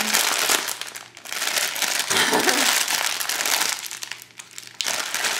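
Crinkly candy bag being twisted and pulled by hands that cannot get it to tear open, crinkling in stretches with short pauses about a second in and again near the four-second mark.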